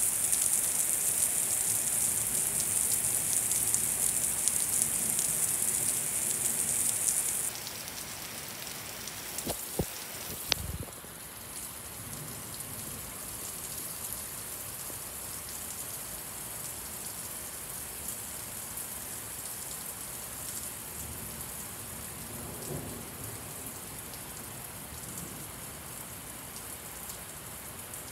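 Very heavy rain pouring onto a lawn and wet pavement: a loud, steady hiss that drops suddenly to a softer hiss about seven seconds in, with a few sharp knocks around ten seconds.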